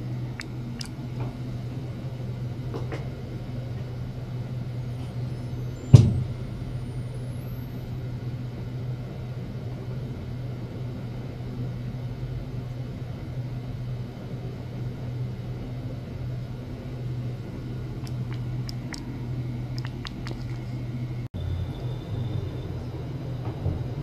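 Steady low hum, with one sharp knock about six seconds in and a few faint clicks.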